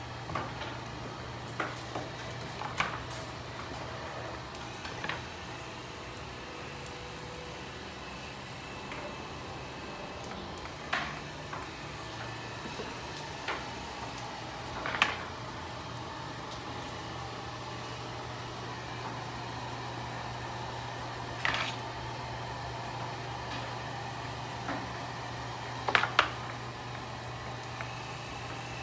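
Steady low hum of electric dog-grooming clippers, broken now and then by short sharp clicks and knocks, with a double knock near the end.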